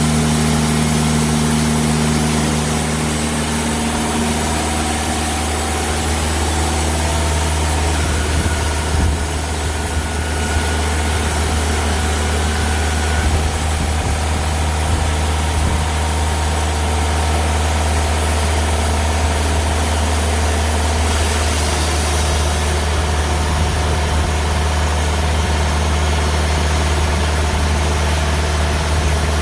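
Diesel engine of a TimberKing 2000 bandsaw sawmill running steadily, with a constant hiss of mechanical noise over it.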